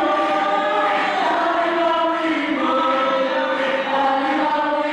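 A choir of young men singing together in harmony, holding long notes and moving to a new chord every second or so.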